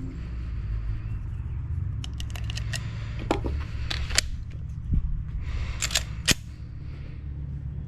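Sharp metallic clicks and clacks of pistol handling: a quick run of small clicks about two seconds in, then several single sharper knocks, over a steady low hum.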